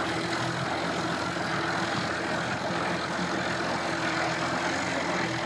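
Mercury outboard motor running steadily at low speed, pushing a small aluminium boat through the water with a constant hum.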